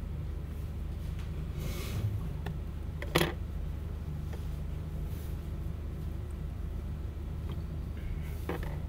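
Quiet room tone with a steady low hum, broken by short rustling sounds from someone at a desk and one sharp knock about three seconds in.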